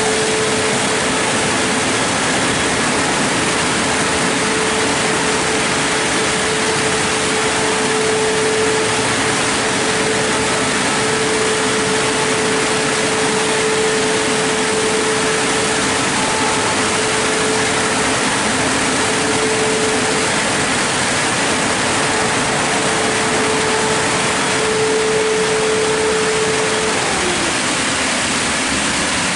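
Christ Genius Vitesse rollover car wash machine running, a loud steady hiss with a steady hum; near the end the hum falls in pitch and stops as the machine winds down.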